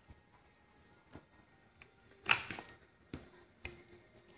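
Plastic Distress Ink pad cases and an ink blending tool being handled on a table: about seven short sharp clicks and taps, the loudest a little over two seconds in.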